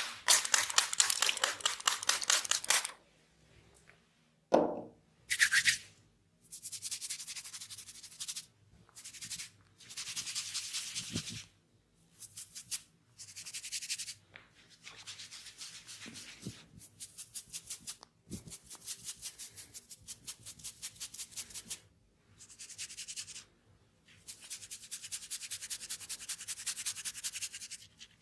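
Fingers rapidly rubbing and scrubbing through hair and scalp during a head massage, in repeated crackly bursts of one to three seconds with short pauses between.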